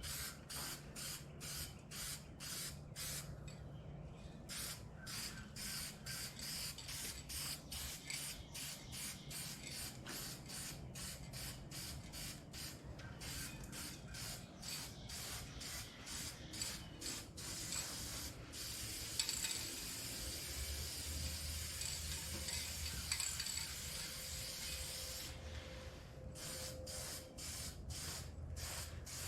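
Aerosol spray paint hissing onto a steel fuel tank in short rhythmic bursts, about two to three a second, with a longer, steadier spray for several seconds past the middle. A low hum joins in during the second half.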